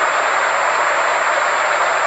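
Steady therapy-frequency track: an even rushing noise with a constant, thin high-pitched tone held over it, unchanging throughout.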